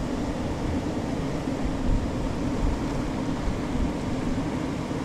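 Steady rush of a fast river, with wind buffeting the microphone in low thumps.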